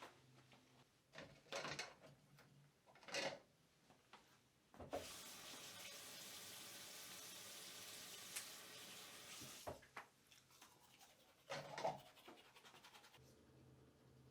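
Water running steadily for about five seconds, starting and stopping abruptly, with a few short rubbing sounds before and after it.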